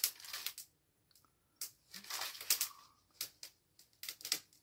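Freshly lit wood fire in a brazier crackling as it catches well, with irregular sharp cracks and brief hissing between them.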